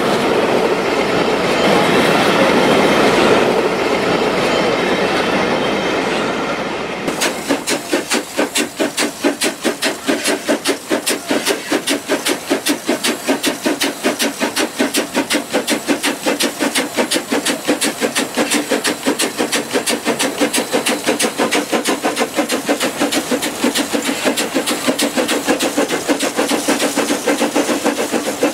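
Steam locomotive Bello working: a loud steady hiss of steam for the first several seconds, then, about seven seconds in, rapid even exhaust chuffs from the chimney, a few beats a second, as the engine pulls its train.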